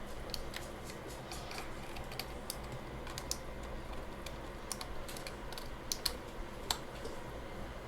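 Plastic keycaps being pushed back onto a computer keyboard's key switches: irregular small clicks and snaps, a few sharper ones near the end.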